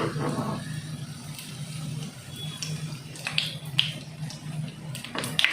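A few light clicks and taps of a metal utensil against the frying pan as fried cutlets are lifted out of the oil, over a steady low hum.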